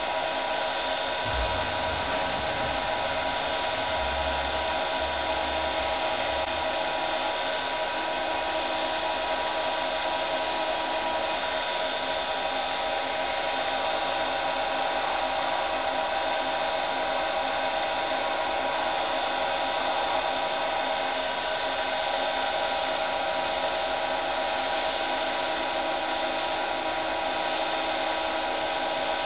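Small wood lathe running at a steady speed: an even motor whine with several steady tones, while the pen blank spins on its mandrel during polishing. A few soft low thumps come in the first few seconds.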